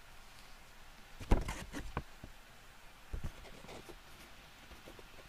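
A few handling knocks and clicks from a plastic wearable air purifier mask being handled. The loudest knock comes about a second in, followed by a short cluster of smaller ones and one more about three seconds in.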